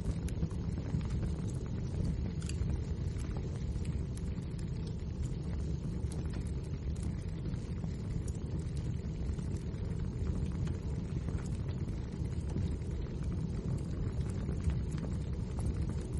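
Wood fire burning in a fireplace: a steady low rumble with frequent small crackles and pops from the burning logs.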